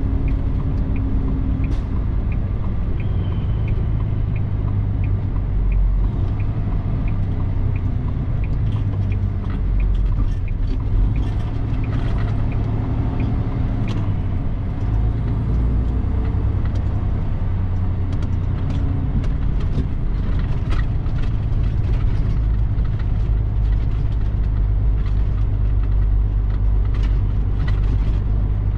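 Semi-truck tractor driving, heard from inside the cab: a steady low engine and road rumble with scattered rattles and clicks. A regular ticking at about two a second runs through the first third and then stops.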